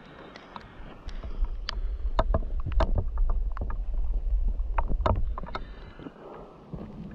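Footsteps and camera-handling knocks while scrambling over rocky, gravelly ground, over a heavy low rumble that swells about a second in and dies away near the end.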